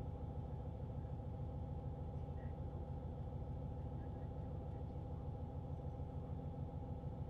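Engines of a car ferry running steadily under way: a constant low drone with a faint steady hum above it.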